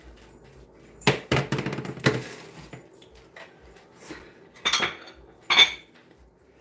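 Metal sheet pan set down on a glass-top stove, with several sharp metallic knocks a little after a second in. A few more knocks from kitchenware being handled and set down follow in the second half.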